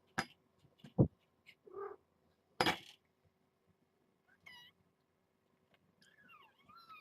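Young kitten mewing, short high-pitched mews that bend up and down in pitch, mostly in the second half. Several sharp knocks come in the first three seconds, the loudest about a second in.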